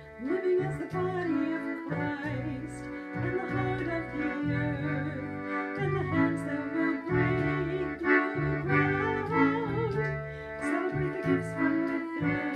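A woman singing to an accordion played live on a Roland digital accordion. Its bass notes pulse in short repeated blocks under the sustained chords.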